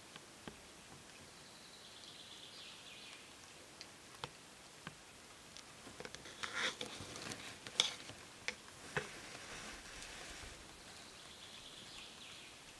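Wild boar sow and piglets drinking and rooting in a muddy puddle: scattered small splashes, slurps and clicks, busiest about halfway through.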